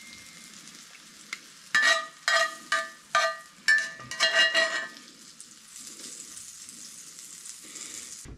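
Food sizzling in a hot frying pan, with a run of about seven short ringing scrapes of a metal utensil against the pan a couple of seconds in. After that the hiss of the frying grows brighter.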